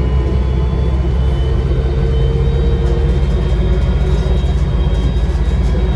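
Bus diesel engine running under way, heard from inside the bus: a steady low engine drone with a thin high turbocharger whistle over it.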